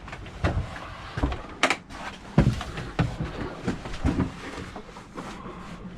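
Irregular knocks, clunks and rattles of gear and hardware being handled and shifted about, with one sharper hit about one and a half seconds in.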